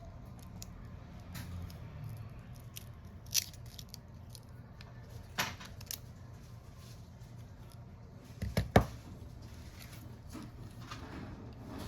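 Small sharp clicks and scrapes of hand tools working on a phone. A few are scattered, and a louder cluster of two or three comes about three-quarters of the way in, over a steady low hum.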